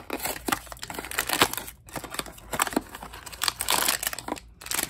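A small cardboard blind box being opened by hand: flaps and tabs pulled open with quick clicks, scrapes and crinkling rustles, thickest a little before the end.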